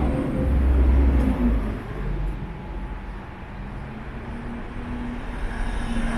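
Passing vehicle traffic: a low rumble, loudest for the first second and a half, then easing to a steady background hum.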